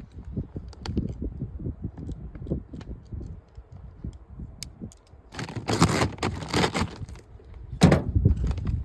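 Deer corn being poured into a game feeder: a series of knocks and thumps from handling the bag and feeder, then a rush of kernels pouring for about two seconds past the middle, and another short rush near the end.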